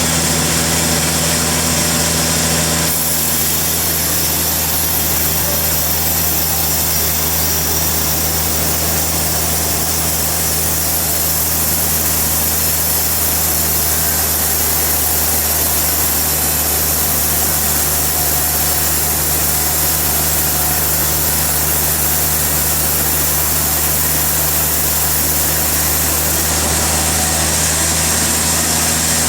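Sawmill machinery running steadily: a motor's constant hum with steady low tones. The sound changes about three seconds in and changes back near the end.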